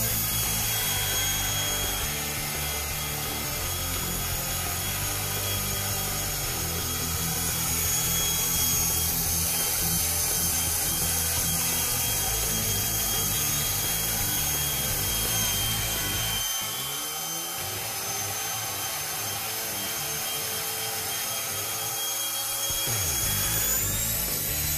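Esky Honey Bee V2 electric RC helicopter's motor and rotor running with a steady high whine; the whine rises near the end as the motor speeds up.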